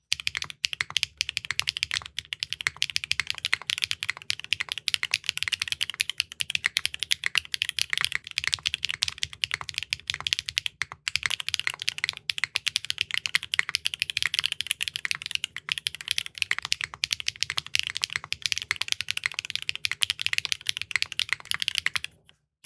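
Steady typing on a Neo65 Core Plus mechanical keyboard with clacky Keygeek linear switches, the PA, M3 and Ding Ding played back to back in a blind sound test. It is a dense run of sharp, high-pitched key clacks, with a brief gap about eleven seconds in.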